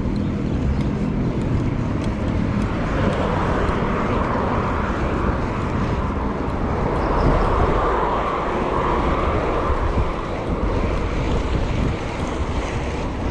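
Street traffic and wind rushing over the microphone while riding a bicycle through city traffic; the rushing noise swells in the middle of the stretch and then eases.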